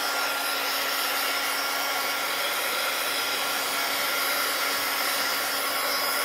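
Craft heat tool running, blowing hot air onto card: a steady, even fan whir with a faint low hum under it.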